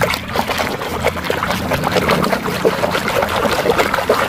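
A hand swishing and churning through a plastic tub of muddy, foamy water, making a steady run of small splashes and sloshes.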